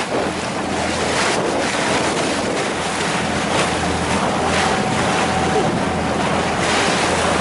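Tour boat's engine running with a steady low hum, under wind buffeting the microphone and waves splashing against the hull in repeated surges.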